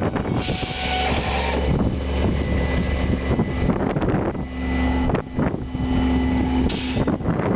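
Semi truck's engine running steadily, driving the moving floor of a Shuttle Floor trailer that is unloading railroad ties out the open rear, with wind buffeting the microphone. A couple of knocks come a little past the middle.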